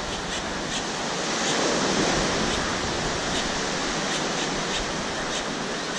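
Surf breaking and washing over shallow water, a steady rush that swells a little about a second or two in.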